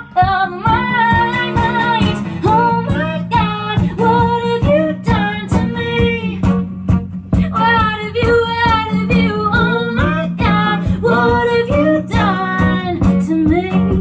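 A woman singing a slow song, her voice sliding between long held notes, over two strummed acoustic guitars.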